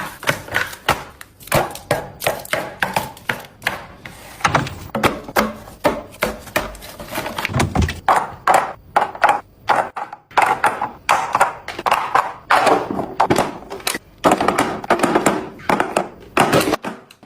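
A fast, busy run of knocks, clacks and thunks, several a second, as food containers and produce are handled and set down while restocking a fridge.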